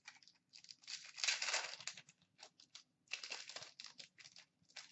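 Plastic trading-card packaging crinkling and rustling as cards are handled, in a run of short scratchy bursts with a longer one about a second in.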